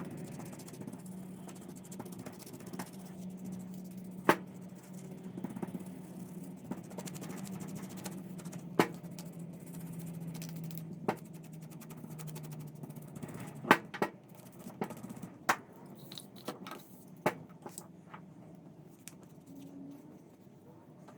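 About a dozen sharp knocks and clicks at irregular intervals, over a low steady hum that fades out about twelve seconds in.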